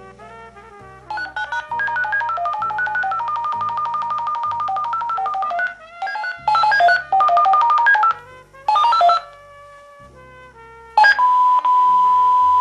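Lifeline telecare home unit raising an alarm call from a smoke detector test: runs of stepped electronic beep tones, then a long steady tone about eleven seconds in as the call goes through to the monitoring centre.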